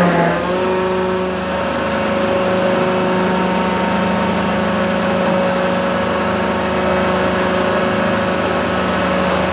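Engine of heavy construction machinery running steadily at a constant pitch, with no hammer blows.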